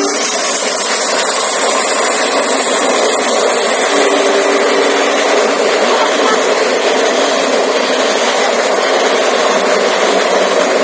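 A passenger train's coaches rushing past close by at high speed, a loud, steady rush of wheels on rail and moving air.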